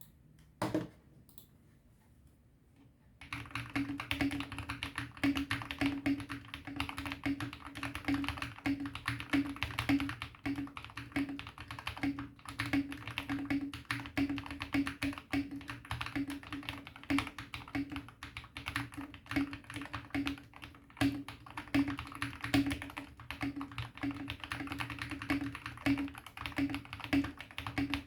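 Typing on a Vortexseries VX5 60% mechanical keyboard modded with lubed KTT Sea Salt Lemon switches and PE and EVA foam, giving a deep clack/thock to each keystroke. A single keystroke about a second in, then fast continuous typing from about three seconds on.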